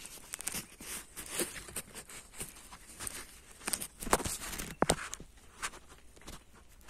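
Footsteps of a person walking, with irregular rustles and soft clicks; a few louder steps come about four and five seconds in.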